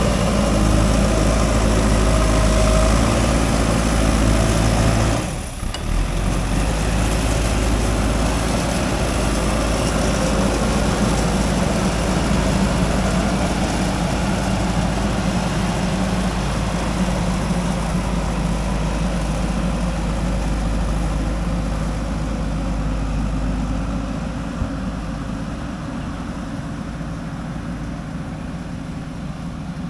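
JCB 3DX backhoe loader's diesel engine running steadily while working. It dips briefly about five seconds in and grows somewhat quieter near the end.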